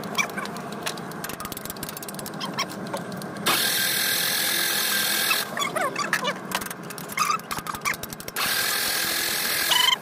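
Hino diesel engine running with a rapid, dense clatter over a steady hum. It is the excess noise the mechanic sets out to cure by setting the injection pump timing. Two stretches of louder steady hiss, about three and a half seconds in and again near the end.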